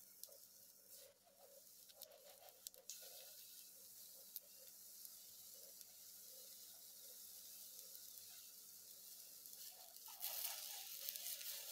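Hot oil sizzling faintly in a frying pan, with small scattered crackles in the first few seconds; the sizzle swells louder about ten seconds in.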